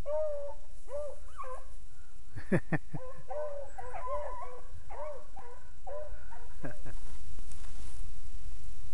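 Beagles baying in a string of repeated, arched calls as the pack runs a rabbit's scent trail. A few sharp knocks come about two and a half seconds in, and the calls stop about seven seconds in.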